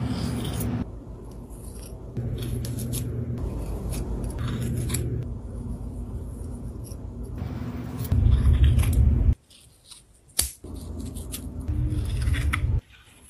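Scissors snipping moss in a run of short, crisp cuts over a low rumble. The rumble is loudest about eight seconds in, and the sound drops away briefly a second later.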